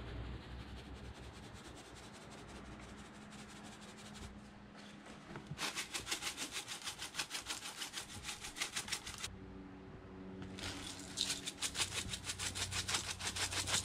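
Spice shaker jar being shaken over a roast, the dry seasoning rattling out in fast, rhythmic scratchy strokes. There are two runs of shaking: one starting about five seconds in, and another from about ten seconds in to the end.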